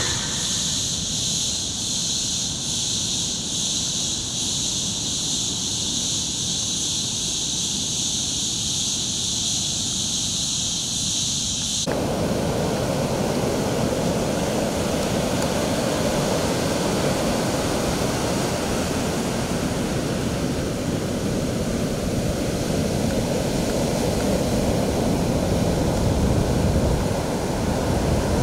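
Night insects trilling high and steady over a low wash of surf. About twelve seconds in it cuts abruptly to the full, steady wash of ocean waves breaking on the beach.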